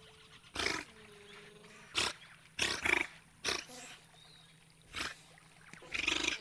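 Wild animal calling: about seven short, loud calls at uneven intervals.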